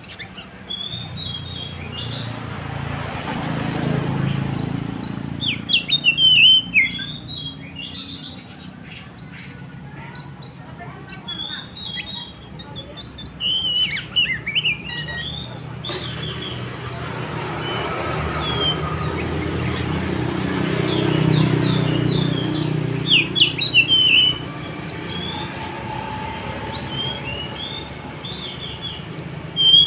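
Oriental magpie-robin singing: bursts of loud, varied whistled phrases and sharp chirps, loudest about 6, 14 and 23 seconds in, with scattered short notes between.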